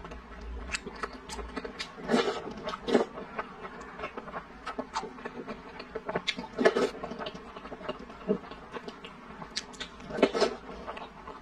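Close-miked slurping and chewing as a person eats spoonfuls of milky purple rice soup with tapioca pearls from a wooden spoon, in irregular bursts of mouth sounds with short pauses between.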